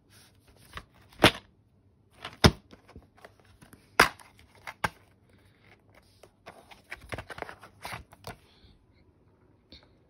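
Plastic DVD cases being handled: several sharp clicks and knocks as a case is opened and shut, then a quicker run of small clicks and rustles from fingers working the case and the discs in it.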